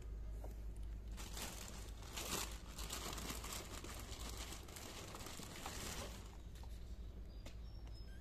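Scratchy, crinkling rustle of kittens' paws and claws scrabbling on a plastic basin, lasting a few seconds and dying away near the end.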